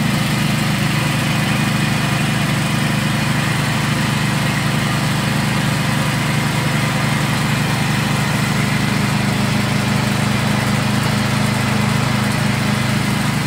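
Motor-driven grinder running steadily under load while it grinds fried peanuts, dried chilies and garlic and forces them through its perforated plate as a coarse paste. The sound is a constant low mechanical hum with a grinding hiss over it.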